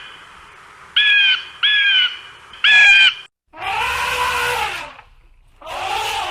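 Animal calls: three short, high-pitched calls, each about half a second long, in the first three seconds, then two longer, rougher calls.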